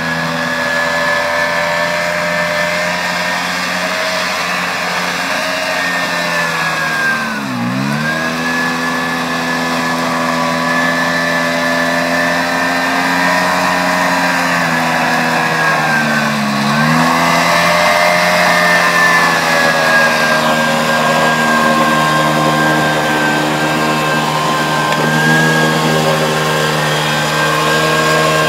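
Early-1970s Cushman Trackster tracked ATV's engine running steadily under load. Twice, about 7 and 16 seconds in, the engine speed drops sharply and then climbs back.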